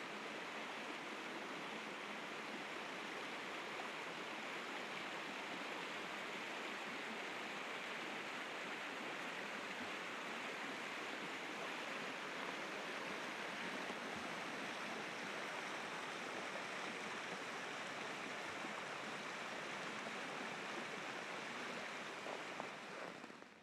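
Rapids of a partly frozen river rushing steadily, a continuous even roar of water that cuts off abruptly about a second before the end.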